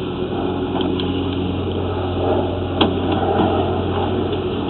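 An engine running steadily with a low, even hum, and one sharp click a little under three seconds in.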